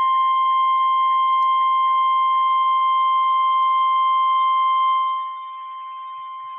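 NOAA Weather Radio warning alarm tone: a single steady 1050 Hz tone that starts abruptly and holds, the attention signal announcing a National Weather Service warning. A little after five seconds in it drops sharply in level and carries on more quietly.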